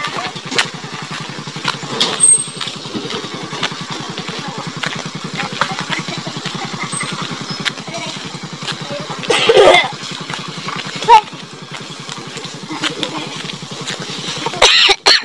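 Small motorcycle engine running at low revs over a rough dirt trail, with scattered knocks and rattles from the bumps. A short shout comes about nine and a half seconds in.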